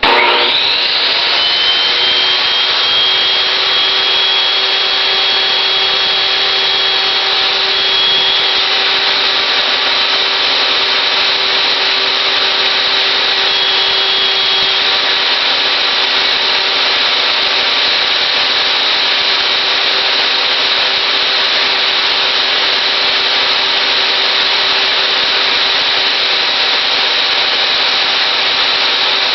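Table saw switched on and running steadily, a constant loud hum with a steady whine from the motor and spinning blade.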